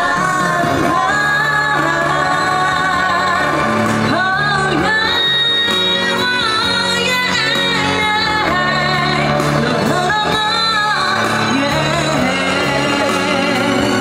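A woman singing a pop song live into a handheld microphone, over amplified pop backing music played through PA speakers. Her melody rises and falls in sustained phrases over a steady bass line, with no pause.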